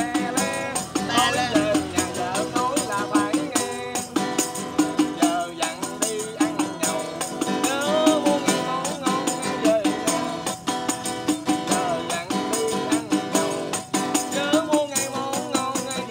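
A man singing a Vietnamese parody song (nhạc chế), keeping a steady beat on a small handheld rattle-type percussion instrument that he taps and shakes in time.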